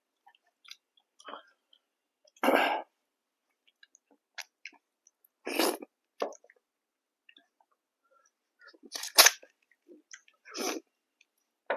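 Eating sounds at a close microphone: faint chewing clicks broken by four short, loud mouth noises a few seconds apart.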